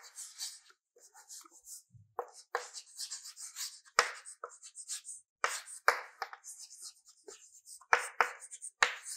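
Chalk writing on a blackboard: irregular taps of the chalk striking the board, with short scratchy strokes between them as letters are written.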